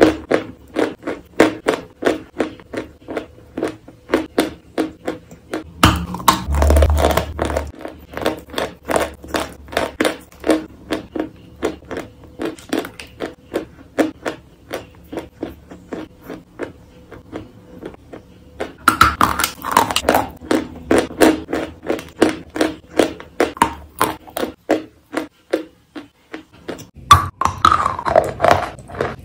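Close-miked chewing of wet chalk coated in paste: a steady run of short, wet, pasty chews and squelches, with a sharp, loud bite near the end.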